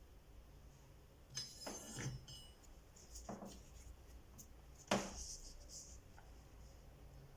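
Small objects being handled: a few short clicks and rubbing sounds, the sharpest click about five seconds in.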